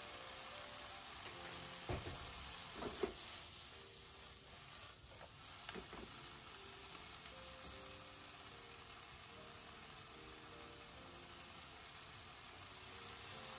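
Corn and water spinach sizzling in a hot non-stick pan just after sake and soy sauce have gone in, with a spatula stirring them. The spatula knocks against the pan a few times, about two and three seconds in and again near six seconds.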